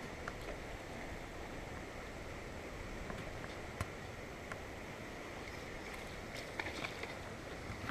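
Steady rushing of river water, with a sharp click a little before midway and a few light taps near the end.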